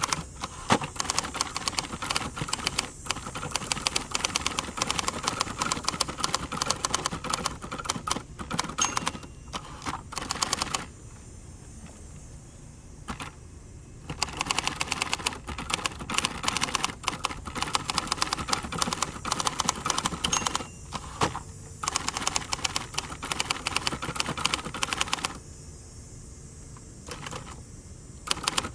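A 1967 second-generation Hermes 3000 manual typewriter typing in quick runs of keystrokes, with two pauses of a few seconds, about eleven seconds in and again near the end.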